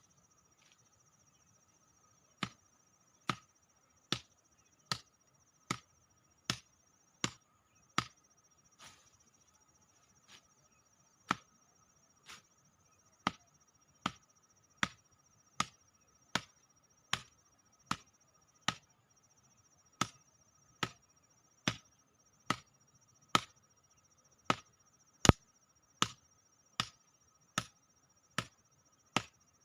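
Repeated chopping strikes, a sharp knock roughly every 0.8 seconds. They start a couple of seconds in and thin out for a few seconds near the middle.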